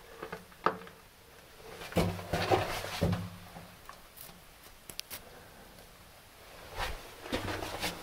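Footsteps and scuffs on the rocky floor of a mine drift, in irregular clusters of short clicks and crunches with pauses between.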